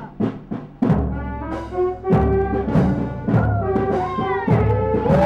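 Brass band music: a drum beating about three strokes a second, then brass instruments come in about a second in, playing held notes over a steady low bass while the drumming goes on.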